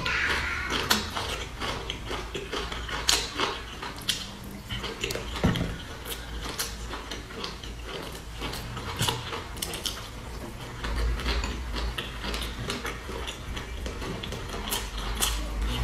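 Close-miked chewing and mouth sounds of a person eating boiled dumplings: many irregular wet clicks and smacks, over a steady low hum.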